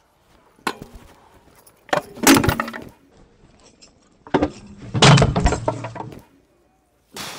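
Stunt scooter grinding a round metal rail and then crashing: a loud metallic clatter about two seconds in, then a heavy crash about four and a half seconds in as the rider slams onto the concrete and the scooter clatters and scrapes across the ground, with a last sharp clack near the end.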